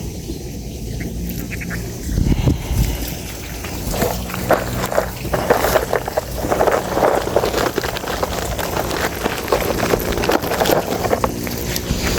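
Irregular rustling and crackling handling noises over a steady low rumble of wind on the microphone. The rustling gets busier from about four seconds in.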